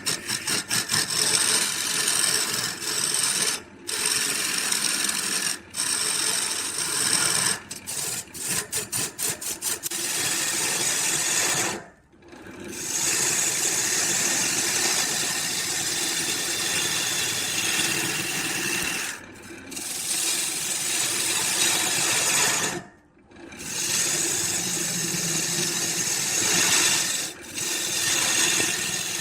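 A power tool working wood, in stretches of several seconds with short breaks between them; near the start and again about eight seconds in it comes in quick pulses.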